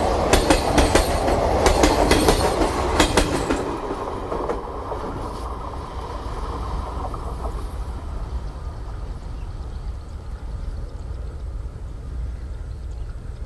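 Indian Railways ICF passenger coaches running past close by, their wheels clicking rapidly over the rail joints. About three and a half seconds in, the last coach clears and the clicking stops, leaving a low rumble that fades as the train moves away.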